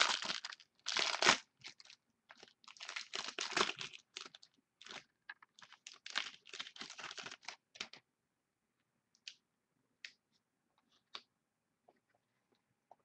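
Plastic wrapper of a trading card pack being torn open and crinkled by hand. Near the end only a few faint clicks are left as the cards are handled.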